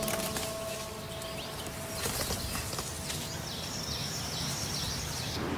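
A European bison grazing, with soft rustling and tearing of grass and a faint knock about two seconds in. Over it, a bird sings a high, repeated phrase from a little past halfway to near the end.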